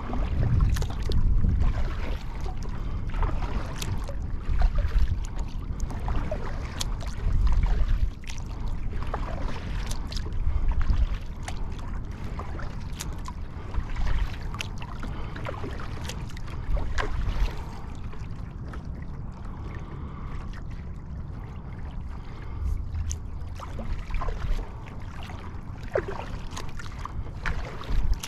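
Water lapping and splashing against a Field & Stream Eagle Talon 12 kayak's hull, with scattered small clicks and knocks. Wind buffets the microphone in uneven gusts, strongest in the first half.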